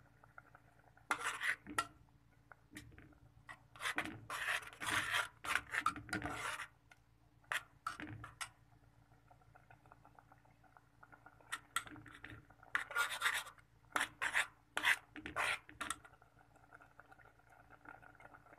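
Metal spoon scraping against the bottom and sides of a metal pot while stirring instant noodles in broth. It comes in irregular bursts of quick rasping strokes, heaviest in the middle and again past halfway, with pauses between.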